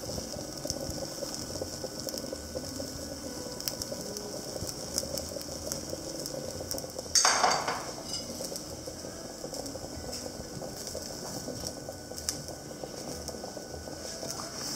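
Crepe frying in a pan on a gas stove: a soft steady sizzle with scattered light clicks and clinks of a spoon and spatula against the pan. About seven seconds in there is a short, loud clatter lasting about half a second.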